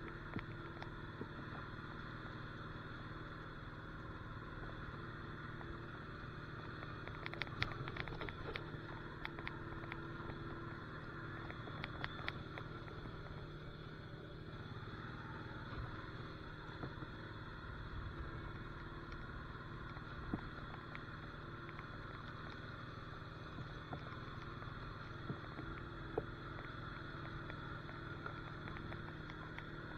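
Honda Rancher ATV's single-cylinder engine running steadily as it is ridden, with a cluster of short rattling clicks about a quarter of the way in and a few single knocks later.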